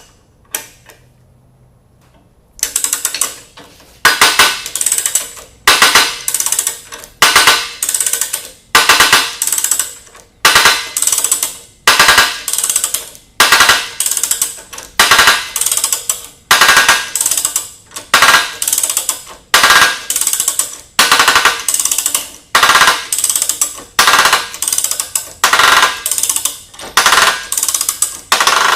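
Ratchet wrench working a coarse-threaded jacking nut on a water pump bearing puller, a burst of rapid clicking on each stroke, about one a second, starting a couple of seconds in.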